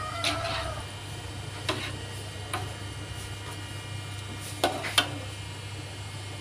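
Metal spatula knocking and scraping against an aluminium wok of broth, a handful of sharp clinks with the two loudest close together near the end, over a steady low hum.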